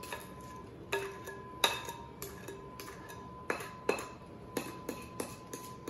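A spoon scraping and knocking against a glass mixing bowl as a wet fruit mixture is scooped out: a string of irregular clinks and taps, the sharpest about a second and a half in.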